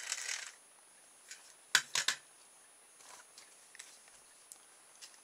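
Hard plastic toy motorbikes being handled on a workbench: a quick cluster of three sharp clicks about two seconds in, with faint taps and rustles around them.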